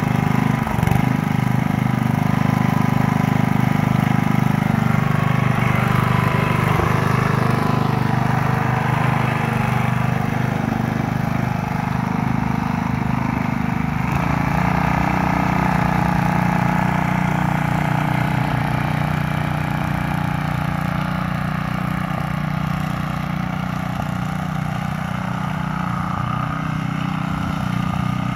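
Small gas engine of a walk-behind Row Buster furrowing machine running steadily as it cuts a planting row, easing off slightly in level about twelve seconds in.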